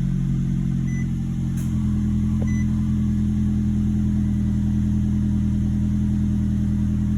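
2011 Nissan Altima engine idling steadily just after a restart, settling to a lower idle about two seconds in. It runs smoothly now that a new ignition coil has cured the cylinder misfire. Two faint short chime beeps sound early on.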